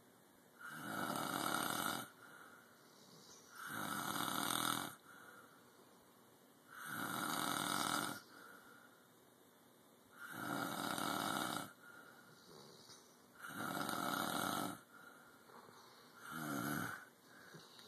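Loud snoring: six long snores about three seconds apart, each lasting a little over a second, with quieter breathing between them.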